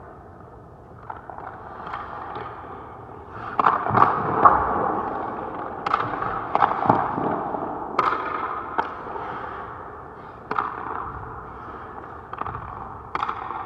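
Hockey goalie skates scraping and cutting the ice, broken by a series of sharp knocks of gear striking the ice, each ringing on in the rink's echo; the loudest knocks come about four seconds in.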